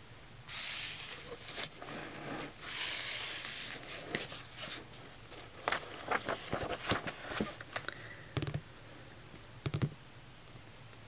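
Paper rustling from a paperback book's pages being handled and the book closed, followed by fingertips tapping and scratching on its cover in quick, irregular clicks, with a couple of soft thumps near the end.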